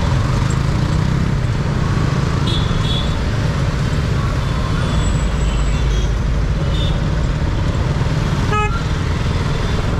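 KTM Duke 200's single-cylinder engine running steadily at low speed in dense traffic. Other vehicles' horns give a few short toots, the clearest one near the end.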